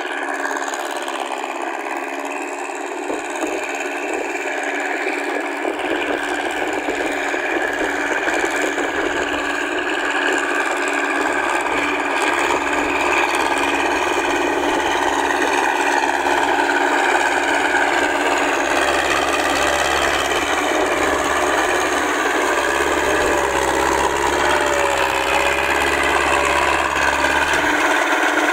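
Massey Ferguson 135 tractor engine running steadily while the tractor works, growing gradually louder as it draws closer.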